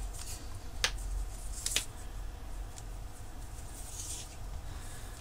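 Faint handling sounds of a coiled power lead being unfurled: two light clicks about a second in and again a second later, then a soft rustle, over a low hum.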